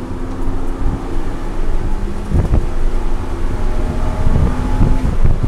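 BMW E90 330i's straight-six engine pulling hard under acceleration, its note rising as the revs climb, heard from inside the cabin with wind buffeting the microphone.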